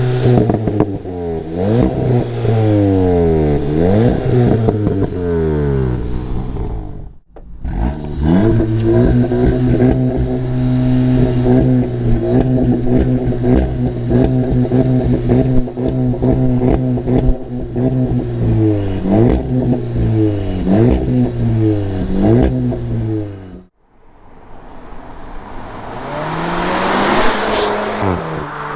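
A VW Golf GTI TCR's turbocharged 2.0-litre four-cylinder engine revved repeatedly while stationary, its pitch rising and falling again and again between steady idle, through its sports exhaust. The sound cuts out briefly twice; near the end the engine idles under a swelling hissy rush.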